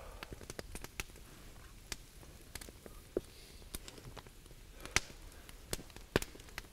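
Campfire crackling: irregular sharp pops and snaps of burning wood, a couple of them louder than the rest.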